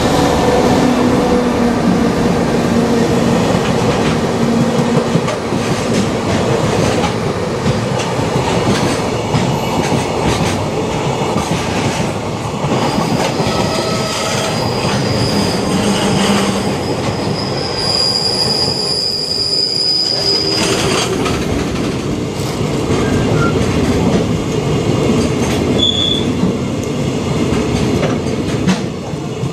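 An EF64 electric locomotive passes close by hauling a container freight train, followed by the steady rumble and clatter of the wagons' wheels over the rail joints. A low hum comes from the locomotive in the first few seconds, and a high wheel squeal is heard from about 13 to 21 seconds in.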